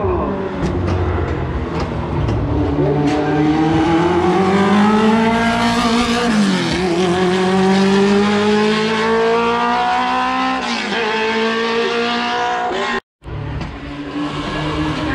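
Historic racing car's engine accelerating hard uphill, its pitch climbing steadily, with two quick upshifts about six and eleven seconds in. The sound cuts out for a moment about thirteen seconds in, then an engine runs on again.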